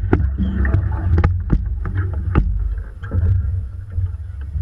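Wind rumbling on the microphone of a camera mounted at the bow of a rowing eight, with water lapping against the hull and a scatter of sharp knocks and clicks from the boat.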